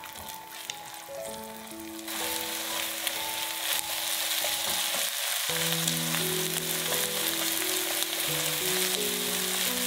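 Beaten eggs frying in hot oil in a nonstick pan, sizzling steadily as a silicone spatula stirs and scrambles them; the sizzle gets louder about two seconds in. Soft background music with held notes plays under it.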